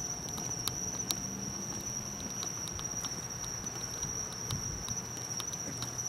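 Night-time chorus of crickets: a steady high-pitched trill that does not let up, with scattered faint clicks and a few soft low thumps of footsteps.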